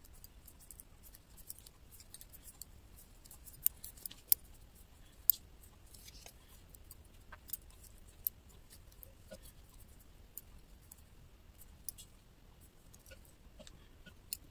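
Thin metal double-pointed knitting needles clicking against each other at irregular intervals as a sock is knit in the round, with a few sharper clicks around four to five seconds in.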